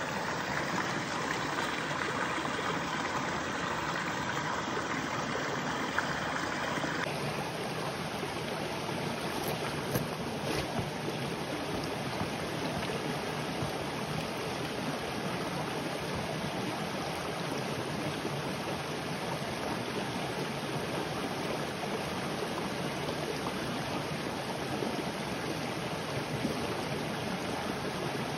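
A small mountain brook running over rocks and little cascades: a steady rushing babble. For the first several seconds the water is closer and brighter, then it settles into an even, more distant rush.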